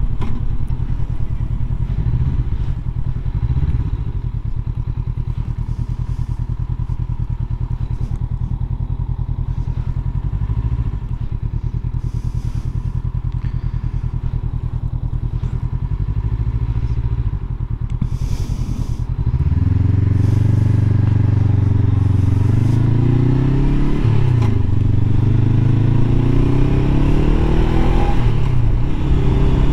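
Honda CB500X's parallel-twin engine running at low revs for most of the first two-thirds. Then, about two-thirds of the way in, it gets louder and accelerates hard, its pitch climbing, dropping and climbing again twice as the rider shifts up through the gears.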